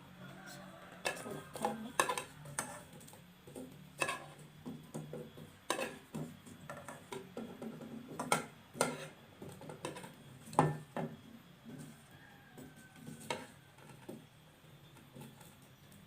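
A spoon or other metal utensil clinking and knocking against a dish in irregular strokes over a steady low hum, as garlic is mashed for a home cough remedy.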